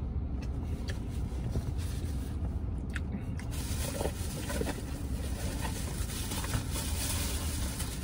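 Steady low vehicle rumble heard inside a pickup truck's cab, with a brighter hiss joining about three and a half seconds in and a few soft short sounds a little after.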